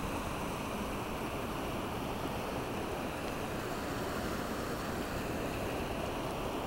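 A creek cascading over boulders into a pool: a steady rushing of water that does not change.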